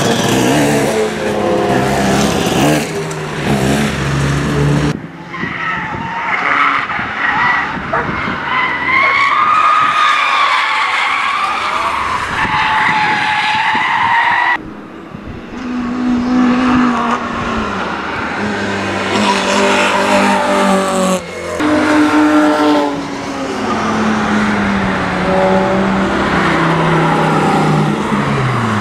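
Cars driven hard on a race track in a run of short clips cut together. Engines rev up and down as they pass, and tyres squeal with a wavering high pitch through the corners. The sound changes abruptly at each cut.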